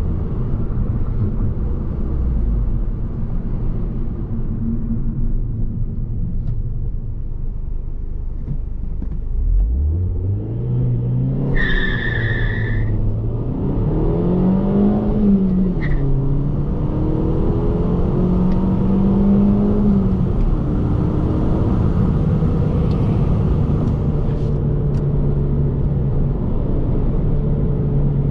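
Alfa Romeo Giulietta 1.75 TBi's turbocharged four-cylinder petrol engine heard from inside the cabin during a hard acceleration run. The engine runs low at first, then about ten seconds in the revs climb steeply, fall at a gear change, climb again, and settle into steady running at higher revs. A brief high squeal sounds about twelve seconds in.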